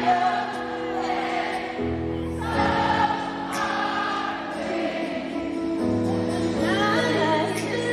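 Live concert music recorded from the crowd: held chords that change about two seconds in and again near six seconds, with voices singing over them.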